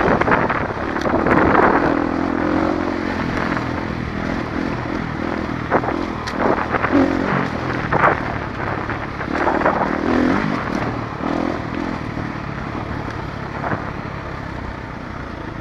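Dirt bike engine running under way on a rough dirt track, its pitch rising and falling with the throttle, with scattered sharp knocks and clatter. It settles to a lower, steadier note near the end.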